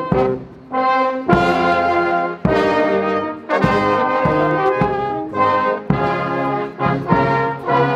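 Marching brass band playing a tune, with bass drum beats under the brass. The playing thins out briefly about half a second in, then comes back in full.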